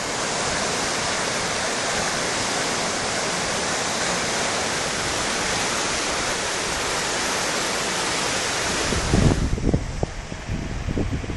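The flooded Water of Cruden rushing, a steady loud wash of water. About nine seconds in it drops away suddenly and wind buffets the microphone in low, uneven gusts.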